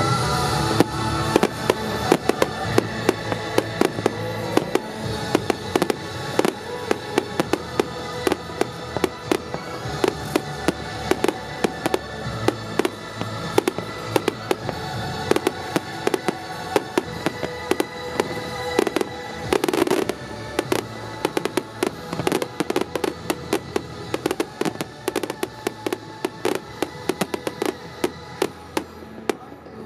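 Fireworks display: shells bursting in a rapid run of sharp bangs, with music playing throughout. A denser, noisier cluster of bursts comes about two-thirds of the way in.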